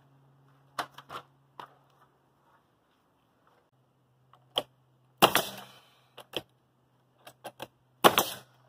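Pneumatic coil nailer firing nails into window trim: a string of sharp shots, the two loudest about five and eight seconds in, each followed by a short hiss of air, among lighter clicks.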